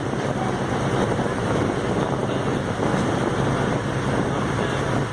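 Ferry boat's engine running steadily under a wash of wind on the microphone and water noise.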